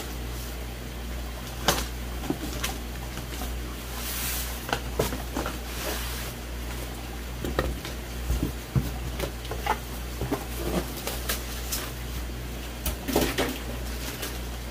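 Cardboard shipping box being opened by hand: flaps folded back, a foam cooler lid pulled off, and the plastic bag inside handled, giving a string of short knocks, scrapes and rustles over a steady low hum.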